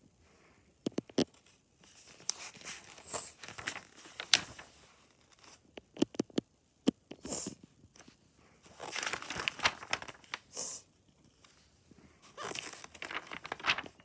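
Paper pages of a picture book rustling as they are handled and turned, in irregular bursts with a few sharp taps.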